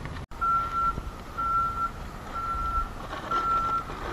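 A vehicle's back-up alarm beeping at a steady single pitch, about once a second, four beeps, over a low engine rumble.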